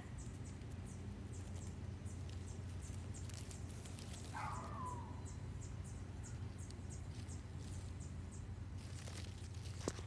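Insects chirping in short, high pulses a few times a second over a low steady hum. About four and a half seconds in comes a single short falling call, and near the end there is a brief rustle and crackle.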